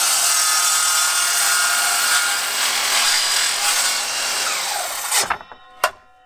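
Evolution sliding mitre saw running and cutting through a stack of three wooden boards at once. The blade runs steadily through the cut, then the motor winds down with a falling whine about five seconds in, followed by a few sharp knocks.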